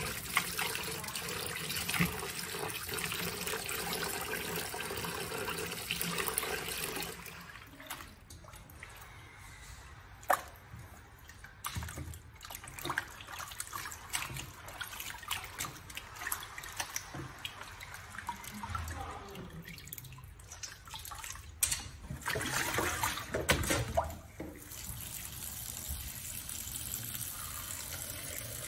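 Kitchen tap running into a plastic basin of water while hands rinse broccoli in it. About seven seconds in the running water stops, and hands splash and slosh in the basin. The tap runs again a few seconds before the end, pouring onto mushrooms in the basin.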